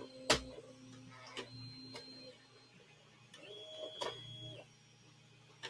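Small enclosed desktop 3D printer running a print: its stepper motors whine in short steady tones that start, stop and change pitch as the print head and bed move. A few sharp clicks come through, the loudest shortly after the start.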